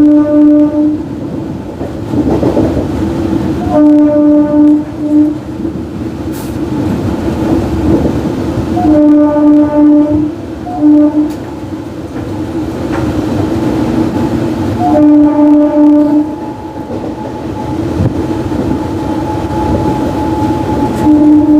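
Horn of an Indian MEMU electric train honking non-stop: groups of quick, stuttering blasts come about every five seconds, and a steadier higher note is held through the last few seconds. Beneath the horn, the running train rumbles and clatters.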